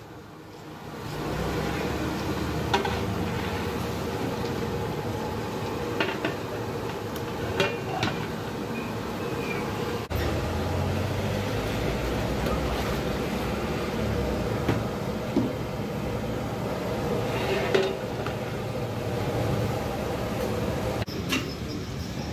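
Steel mug and long ladle clinking and scraping against large aluminium cooking pots while liquid is scooped from the pot, with a few sharp metal knocks over a steady background rumble.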